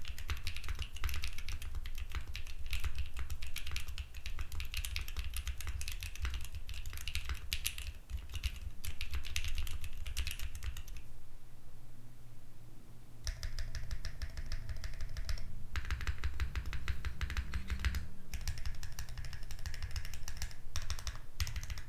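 Typing on an Arc60 custom mechanical keyboard with Jerzzi Paradox linear switches, GMK Monarch keycaps and no foam inside: a fast, continuous run of keystroke clacks, with a short lull about halfway through.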